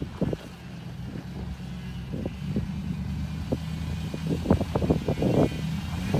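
Lexus GX470's 4.7-litre V8 engine running steadily at low revs as the SUV crawls over rock. Scattered short knocks and crunches from the tyres on rock and gravel come throughout, most of them about four and a half to five and a half seconds in.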